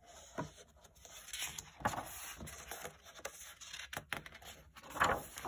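Paper pages of a hardcover picture book turned by hand, rustling and scraping in several short bursts.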